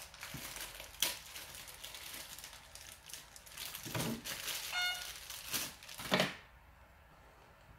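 Crinkling and rustling of plastic parts and packaging being handled, with a few sharp clicks and a short squeak about five seconds in.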